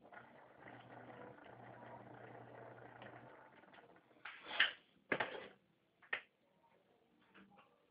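A wall fan's electric motor running with a steady hum during a test after servicing, stopping after about three seconds. Three short, louder clatters follow, the first the loudest.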